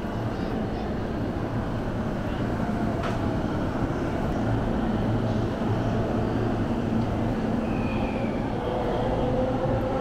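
Steady hum and din of a busy railway station, with a Keihin-Tōhoku Line E233-series electric commuter train running along the platform below. Its motor whine rises in pitch over the last second or two as the train moves.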